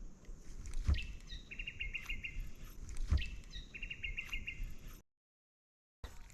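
A bird calling twice, each call a short high note followed by a quick trill of about eight notes. A dull knock comes just before each call, and the sound cuts out completely for about a second near the end.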